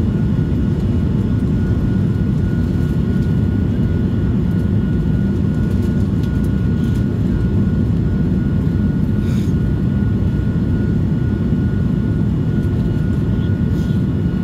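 Steady cabin roar of an Airbus A220-300 climbing after takeoff, heard from a seat at the back of the cabin: its Pratt & Whitney PW1000G-family geared turbofan engines and the rushing air, with a thin steady tone running through the deep rumble.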